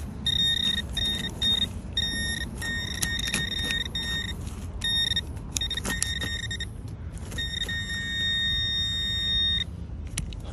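Garrett pinpointer's high buzzing alert tone switching on and off as the probe is worked through wood chips: short pulses at first, then held for a second or two at a time, with a few clicks and scrapes of the chips. The alert marks buried metal, here a lost key.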